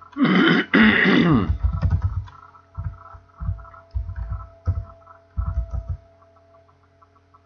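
A short wordless vocal sound near the start, then typing on a computer keyboard: scattered keystrokes, each a low thump with a faint click, stopping about six seconds in. A faint steady hum runs underneath.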